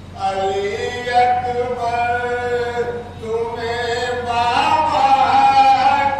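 Unaccompanied male chanting of a noha, an Urdu mourning lament for Muharram. It comes in two long sung phrases with a short break about three seconds in, and the pitch rises and grows louder in the second phrase.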